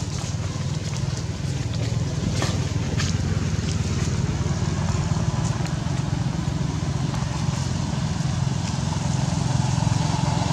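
A steady, low engine drone, with a few faint clicks.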